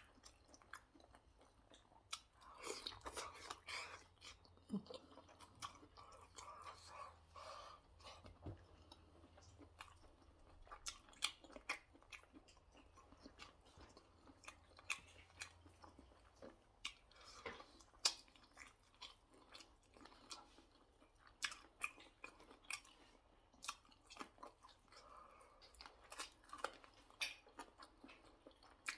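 Close-up chewing and biting of chicken wings, with soft, irregular wet smacking clicks from the mouth.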